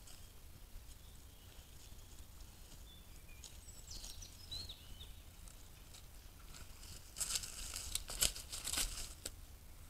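Crackling and rustling of dry leaves and twigs as a deer moves right up against the trail camera, a dense run of sharp snaps lasting about two seconds from around seven seconds in.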